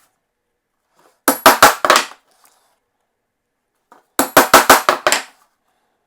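Hammer striking a hole punch to knock bolt holes through a cork gasket sheet: two quick runs of sharp taps, the second longer at about half a dozen blows.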